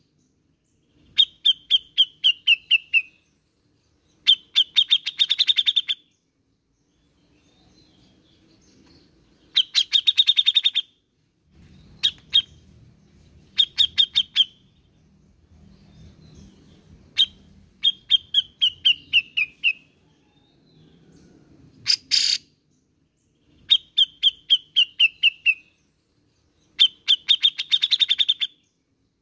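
A cucak jenggot (grey-cheeked bulbul) singing in repeated phrases of quick, clear notes. Several of the phrases slide down in pitch, and there are short pauses between them.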